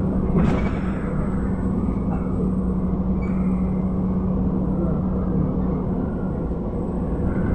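Inside a MAN A11 (NG272) articulated city bus under way: a steady engine hum and road rumble, with one short knock about half a second in.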